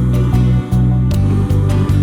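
Instrumental background music with a steady beat, its low notes changing chord twice.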